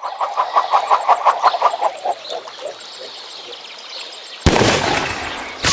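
A bird calling in a rapid series of short notes, about six a second, that slow and fade after a couple of seconds. About four and a half seconds in, a sudden loud rush of noise cuts in and dies away over about a second.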